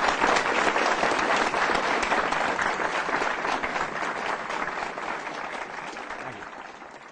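Lecture audience applauding, a dense patter of many hands clapping that fades away gradually toward the end.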